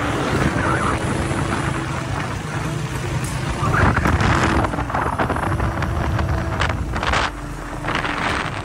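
Honda 125 single-cylinder four-stroke motorcycle engines running at a steady cruise as two bikes ride side by side, with wind buffeting the microphone.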